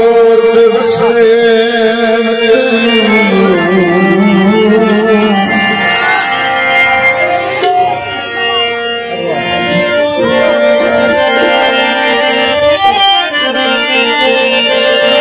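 Harmonium and tabla playing together, with a man singing a long, wavering melodic line over the harmonium's sustained reedy notes.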